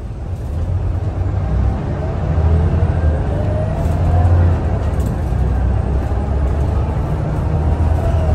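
Scania L94UB city bus heard from inside the cabin, its engine growing louder as the bus accelerates. A whine rises in pitch over a low rumble about two to four seconds in, then the engine runs steadily.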